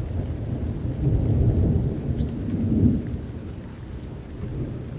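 Thunder from a lightning strike about a kilometre away, rolling in a deep rumble that swells about a second in and dies away over the last two seconds. A few short high bird chirps sound above it.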